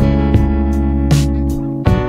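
Background music: plucked guitar chords with a steady beat.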